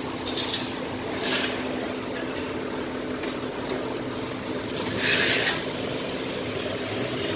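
Excavator engine running steadily, with short hissing bursts over it: two faint ones in the first second and a louder one about five seconds in.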